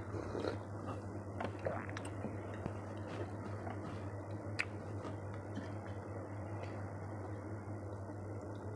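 Faint eating sounds: occasional soft clicks and squishes as food is picked up and chewed, over a steady low hum.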